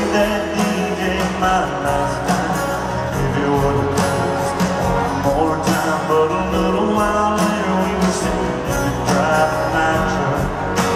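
A live country band playing, with acoustic guitar over a steady drum beat.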